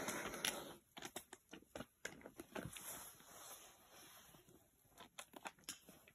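Black bear's claws scraping and gripping tree bark as it climbs the trunk: a scratchy rustle at first, then a string of irregular sharp scratches and clicks.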